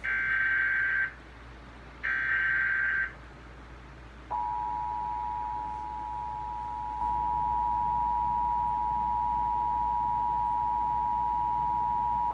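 Emergency Alert System alert opening: two one-second bursts of raspy digital data-header buzz, a second apart, then about four seconds in the steady two-tone EAS attention signal, which sounds on to the end. The tones announce an emergency alert, here a severe thunderstorm warning.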